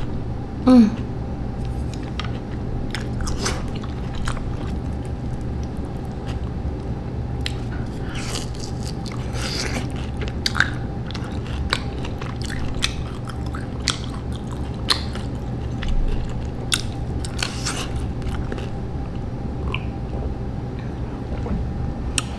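Close-miked eating of spicy Samyang instant noodles: irregular wet slurps, chews and small crunches, over a steady low hum. A short voiced "mm" with falling pitch comes about a second in.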